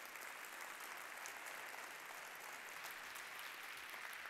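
Large conference audience applauding in a big auditorium: dense, steady clapping at the end of a talk.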